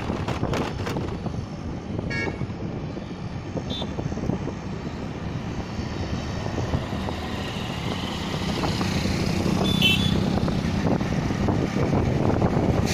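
Road noise heard from a moving two-wheeler on a highway: steady engine hum and wind with passing traffic, growing louder near the end. Short horn toots sound about two seconds in, near four seconds and again near ten seconds.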